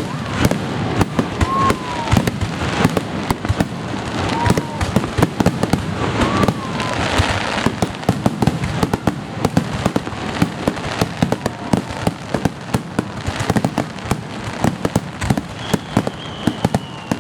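Aerial fireworks display: a dense, continuous barrage of shell bursts, many rapid cracks and bangs one after another. A short falling whistle sounds near the end.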